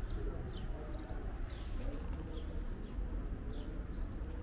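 Small birds chirping, a string of short, high, falling notes repeated every second or so, over a steady low background rumble.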